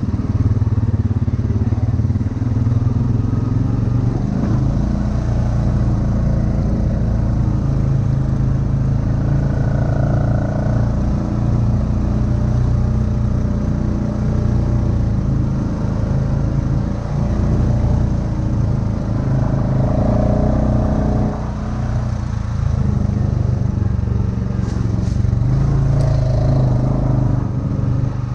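ATV engine running steadily as the quad rides along a trail, its pitch rising and falling a little with the throttle.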